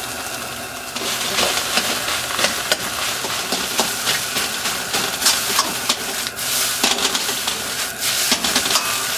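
Fried rice sizzling in a hot iron wok over high heat. From about a second in, a steel ladle scrapes and clinks against the wok many times as the rice is stirred through the vegetables and egg.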